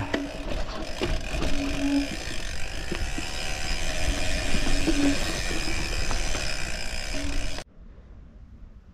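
Gravel bike riding over a stony trail: steady tyre noise with scattered knocks and rattles from the bike. The noise cuts off suddenly about seven and a half seconds in.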